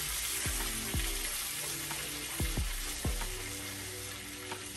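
Butter sizzling in a pan with shrimp, scallops and bacon, a steady hiss. Under it runs background music with deep falling bass hits.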